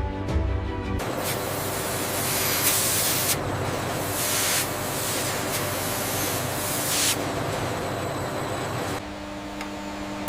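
Steady hissing noise, like a spray or air jet, that swells louder three times. Music cuts off about a second in, and near the end the hiss drops away to a low machine hum.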